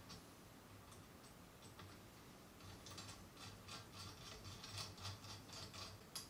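Faint metallic clicks and rattles of a microphone stand's boom clamp and threaded fittings being handled and turned, sparse at first, then a quick run of clicks through the second half.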